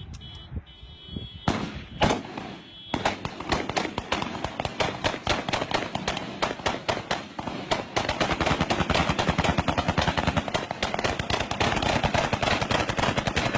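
Celebratory gunfire from several rifles fired into the air. A few single shots come first, then from about three seconds in rapid, near-continuous fire, heavier in the second half.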